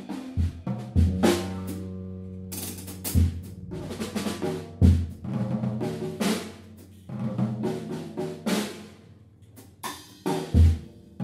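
Experimental instrumental trio music for drum kit, electric guitar with electronics, and prepared piano. Irregular heavy drum hits fall every second or few over held low notes.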